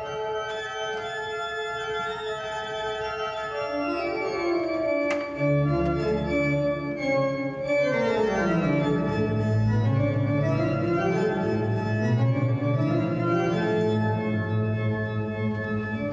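Organ music played on a three-manual digital organ: sustained full chords, with the lower voices stepping steeply down about halfway through and then climbing back up.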